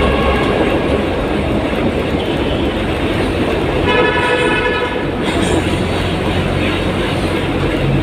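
Steady, loud road and engine rumble heard from inside a vehicle driving through a road tunnel. About four seconds in, a horn sounds for about a second.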